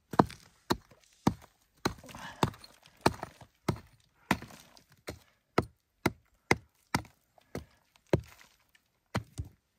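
Steel rock pick chopping into soft chalky clay, about sixteen strikes at a steady pace of roughly one every half second or so. The strikes stop just before the end.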